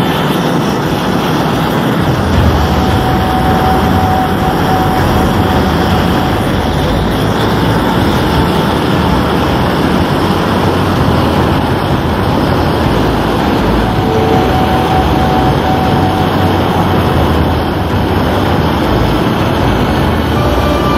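Handheld gas torch burning with a steady, loud hiss as its flame is played on an HTS phone charger that is burning.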